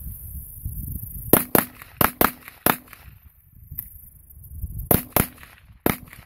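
Rapid semi-automatic fire from a Battle Rifle Company BR308 12.5-inch AR-10-style rifle in 7.62x51 NATO with a muzzle brake: a quick string of about five shots, a pause of about two seconds, then about three more shots near the end.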